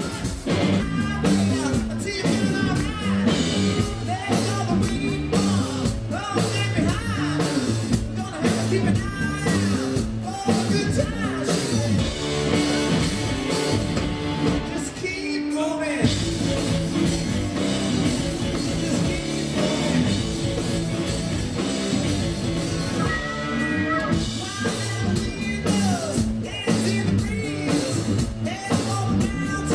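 Live rock band playing: electric guitar and drum kit with a man singing over them.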